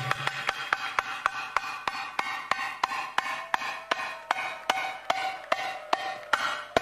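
Belly-dance music: a percussion passage of sharp hand-drum strokes in a quick, even beat, about four a second, with the melody dropped out.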